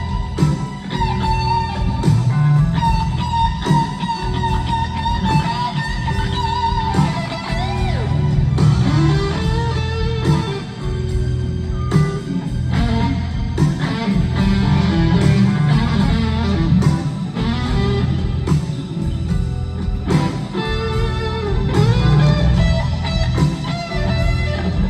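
Live rock band playing an instrumental passage: an electric guitar lead holds and bends sustained notes over a heavy bass line.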